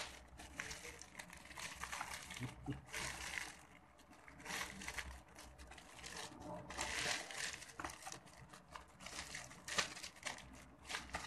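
Clear plastic wrapping crinkling in irregular bursts as it is pulled off a spiral-bound notebook by hand. There is a sharp click right at the start.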